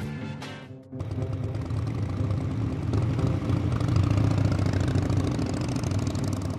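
Small step-through motorcycle's engine running steadily as it rides past, starting suddenly about a second in.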